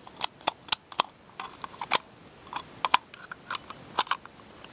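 Small plastic parts of a dismantled electronic toy clicking and tapping as they are handled, a dozen or so sharp, irregular clicks.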